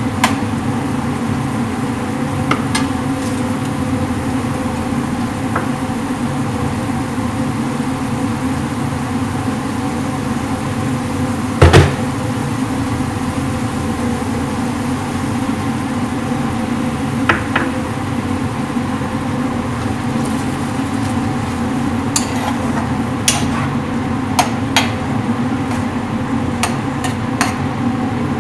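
Steady machine hum in a kitchen, with a few sharp knocks of a utensil against a metal wok. The loudest knock comes about twelve seconds in, and a cluster of lighter clicks comes near the end.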